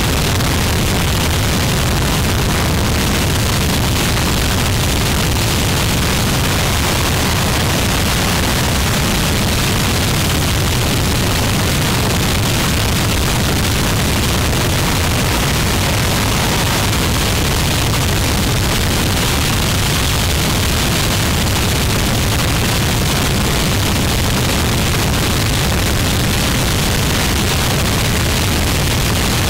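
Harsh noise music: a dense, unbroken wall of distorted static with a heavy low rumble and hiss, held at a constant loud level with no breaks or changes.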